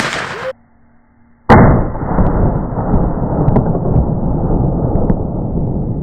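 Sawed-off .410 bolt-action shotgun fired once about a second and a half in: a sharp report followed by a long, slowly fading rumble. Before it, a short burst of noise cuts off suddenly.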